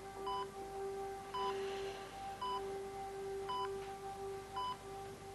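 Hospital patient monitor beeping steadily, one short electronic beep about every second, over a steady low drone.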